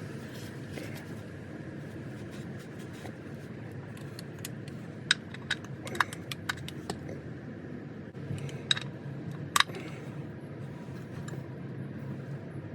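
Hand tools clinking during an oil change: scattered sharp metallic clicks, bunched in the middle, over a low steady hum.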